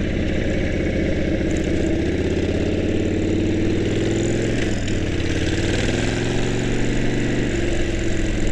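Harley-Davidson motorcycle's V-twin engine under way, picked up by a microphone inside the rider's helmet. The engine pitch rises as it accelerates, breaks off at a gear change about halfway, then climbs again and settles near the end.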